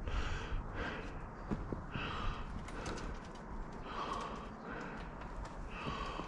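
Breathing, with short breaths recurring about every two seconds over a low background rumble.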